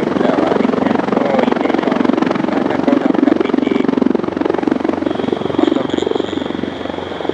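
Airbus EC225 Puma helicopter's twin turboshaft engines and main rotor running steadily, with a fast rotor chop. A steady high whine joins about five seconds in.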